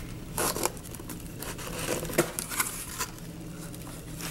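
Shipping box being opened by hand: irregular scraping, tearing and crinkling as the packaging is cut and pulled apart.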